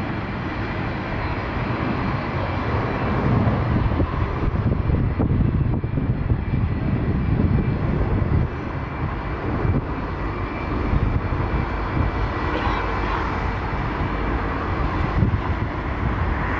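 Jet engines of airliners taxiing on the apron, the nearest a FedEx Boeing 757-200F freighter: a steady low rumble with a faint, thin whine above it.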